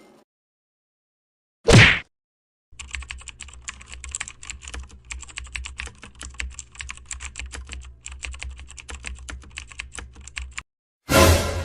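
Computer keyboard typing: a rapid, irregular run of key clicks lasting about eight seconds. A short loud burst comes before it, about two seconds in, and another comes near the end.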